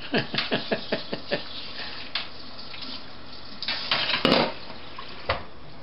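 Hands scrubbing a wet small dog in a stainless-steel kitchen sink, with water splashing. A quick run of splashy strokes comes at the start, a louder splash about four seconds in, and a single knock near the end.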